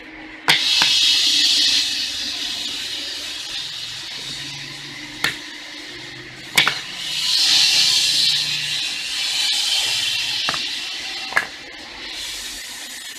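Grooved black natural-stone tiles knocking against the stone floor as they are handled and set down, five sharp clacks, over a loud hissing noise that swells twice.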